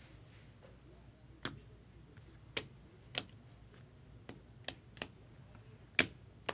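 Irregular sharp clicks and taps of hard plastic as a card holder is handled and set down on the table, about eight in all, the loudest about six seconds in.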